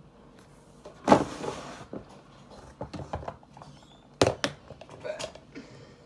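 Makeup items and drawers being handled. There is a brief scraping slide about a second in, then two sharp knocks a little after four seconds, with scattered small clicks and taps between.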